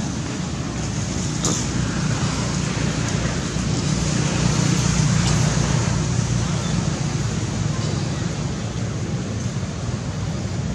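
Steady outdoor background noise with a low rumble, swelling slightly in the middle.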